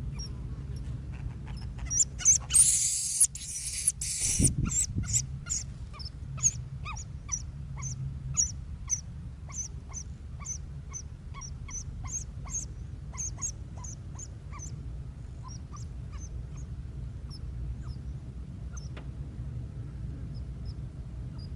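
A brief loud hiss, then a rapid series of short, high bird calls, about two a second, that thin out and fade, over a steady low rumble.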